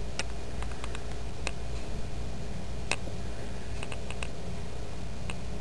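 Steady low hum and hiss with scattered light clicks at irregular intervals; no speech or music.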